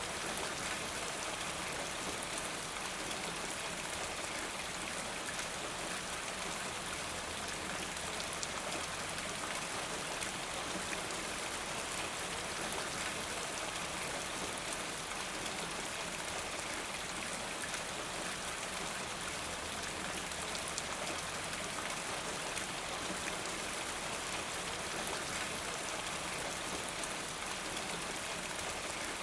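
Steady rain falling, an even hiss with many small drop ticks scattered through it, unchanging throughout.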